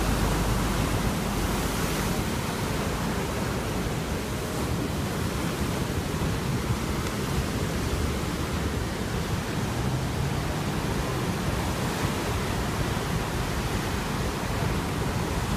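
Heavy shorebreak surf breaking and washing up a sand beach: a steady, even rush of churning water.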